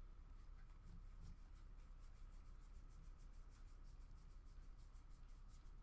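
Near silence, with faint rubbing and light ticks of trading cards being slid and flipped through by hand, over a low steady hum.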